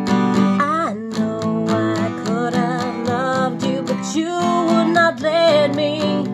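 Acoustic guitar strummed steadily while a woman sings, coming in about half a second in with long, wavering held notes and pitch slides.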